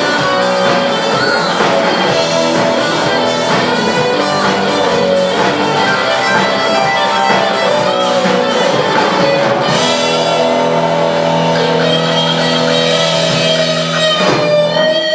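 Instrumental rock music: guitars over a drum kit with no vocals. The cymbal ticking drops out about ten seconds in, leaving held guitar chords.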